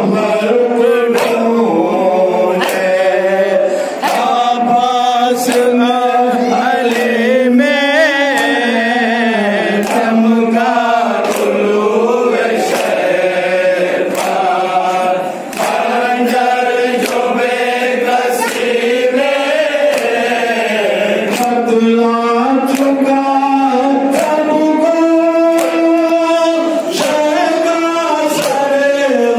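A man chanting a noha, a Shia mourning lament, in long, wavering held lines over a microphone. Under it runs a regular beat of matam: open hands striking chests about once a second.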